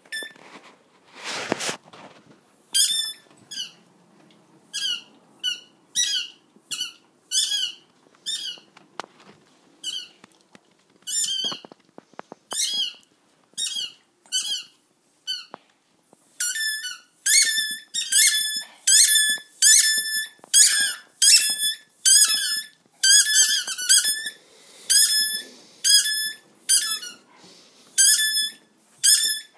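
Dog chewing a squeaky tennis ball: a long run of high squeaks, one per bite, irregular at first and then faster and louder from about halfway through.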